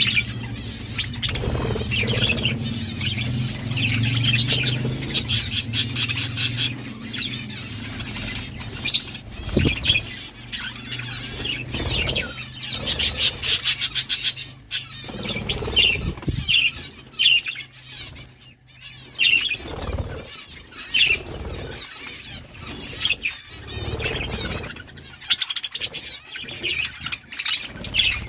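Budgerigars chirping and chattering in short, repeated calls, with runs of fast clicking about halfway through.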